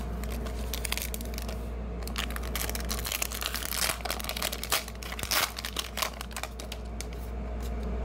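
Foil Pokémon trading-card booster pack wrapper crinkling as it is handled and torn open by hand. The crackling gets denser and sharper about three seconds in.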